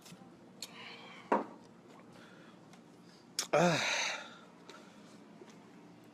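A person's short non-word vocal sounds: a brief breathy exhale about a second in, then a click followed by a louder, short voiced sigh with a falling pitch about halfway through.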